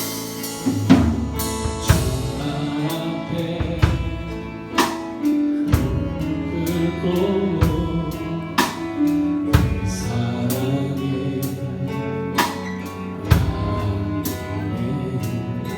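Live church worship band playing a slow worship song between sung lines: sustained chords with a drum kit hitting a slow beat about once a second.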